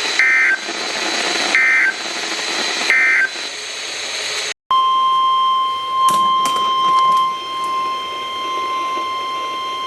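NOAA Weather Radio alert audio over radio hiss: three short two-tone data bursts about a second apart, the SAME end-of-message code closing a warning. About four and a half seconds in, the audio drops out for an instant, then the steady 1050 Hz Weather Radio warning alarm tone sounds, announcing the next alert.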